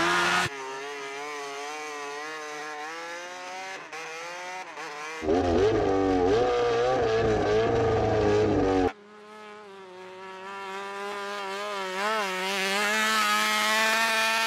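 Honda RC213V MotoGP bike's V4 engine revving up and down as it rides over snow on studded tyres. It is louder and closer for a few seconds in the middle.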